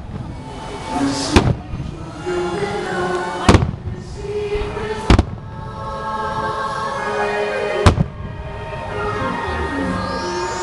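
Aerial fireworks bursting with four sharp bangs, roughly two seconds apart, over music.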